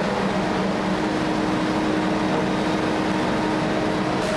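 Steady drone of a running engine, with a constant hum held throughout.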